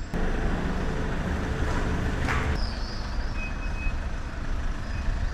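Camper van engine running as it drives along a street, a steady engine noise. The sound changes character about two and a half seconds in.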